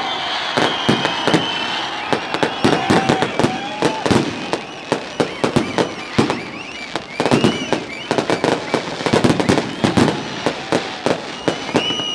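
Fireworks going off in quick succession: a dense string of sharp bangs and crackling pops, with no let-up.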